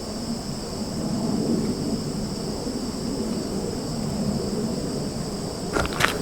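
Steady chorus of crickets trilling in two high bands over a constant low rumble. A few sharp clicks come near the end.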